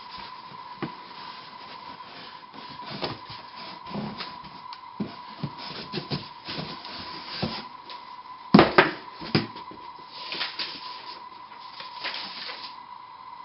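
Cardboard lid of a long gun box scraping and rubbing as gloved hands slide it off the base, with scattered light knocks and one louder knock about eight and a half seconds in.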